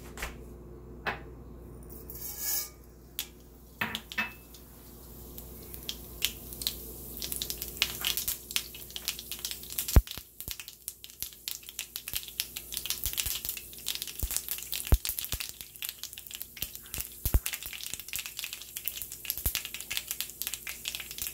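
Mustard seeds crackling and popping in hot olive oil in a wok, a tempering step. A few clicks at first, then from about six seconds in a dense crackle, with a few louder sharp pops among it.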